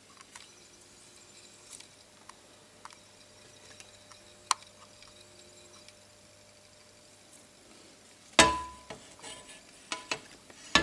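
Low steady hum with scattered faint clicks and ticks. About eight seconds in comes a loud knock, followed by rattling and clattering handling noise as the camera is moved.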